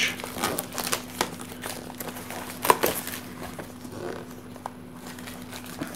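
Plastic shrink-wrap being torn and pulled off a cardboard card box, crinkling with many small crackles and a sharp snap about two and a half seconds in, then quieter handling as the deck of cards is slid out of the box.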